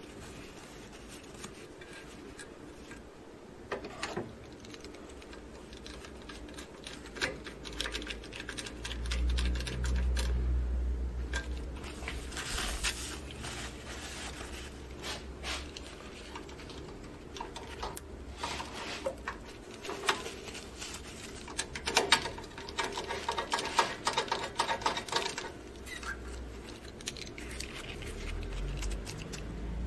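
Paper towel rustling and scraping against a printer's fuser roller and thermistors, with scattered small clicks and taps. A dull low rumble comes about a third of the way in and again near the end.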